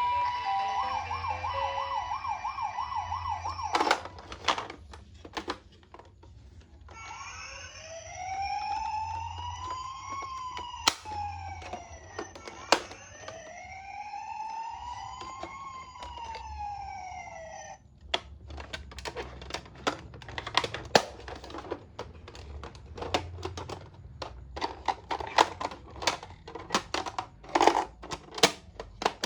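Toy ambulance minicar's electronic siren: a fast warble for the first few seconds, then a slow wail that rises and falls twice and cuts off abruptly. After that come many sharp plastic clicks and taps.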